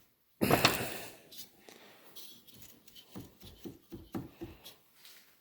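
Handling noise: a brief scraping rustle about half a second in, followed by a series of light knocks and clicks.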